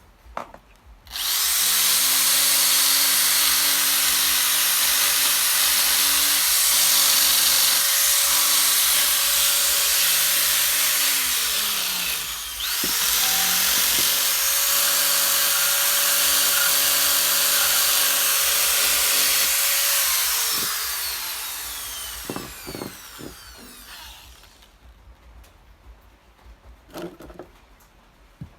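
Handheld power carving tool running against wood with a steady whine, cutting out about twelve seconds in and starting again at once. It runs about seven seconds more, then winds down with a falling whine. A few light knocks follow near the end.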